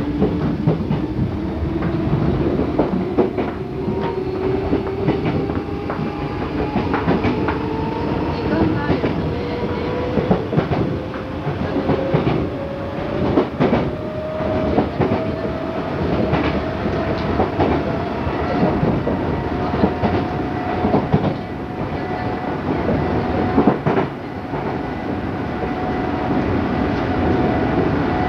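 Running sound inside an Odakyu 8000 series electric train (unrenovated, field-chopper control) accelerating gently. The traction motor whine rises slowly and steadily in pitch, and the wheels click over the rail joints.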